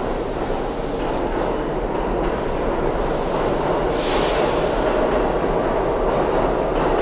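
New York City subway train running past, a steady rumble of steel wheels on rail that grows slowly louder, with a brief burst of hiss about four seconds in.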